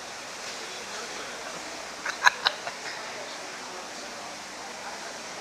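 Steady background noise with a quick run of four or five sharp knocks about two seconds in, the second and third much louder than the others.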